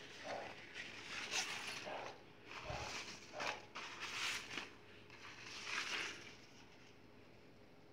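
Thin, shiny fabric of a fold-up shopping bag rustling and crinkling in irregular bursts as it is unfolded and smoothed flat by hand. It quiets down near the end.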